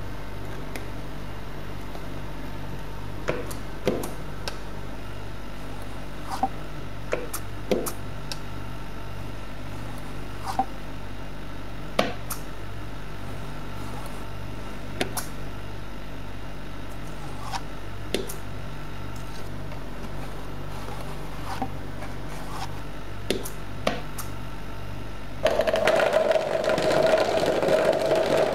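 Steady low hum with scattered light clicks and taps of hand work. A few seconds before the end it cuts abruptly to a machine running, louder, with a steady whine over noise.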